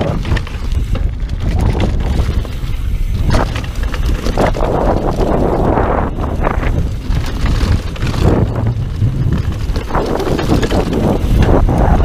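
Mountain bike descending a dirt downhill trail at speed: heavy wind buffeting on the microphone over the rumble of tyres on dirt, with frequent knocks and rattles from the bike.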